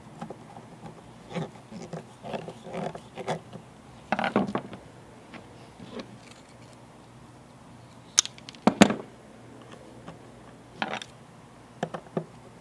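Small handling noises of wiring an amplifier's screw terminal block: scattered clicks and rustles of wire and a screwdriver working the terminal screws, with sharper clicks about four and nine seconds in.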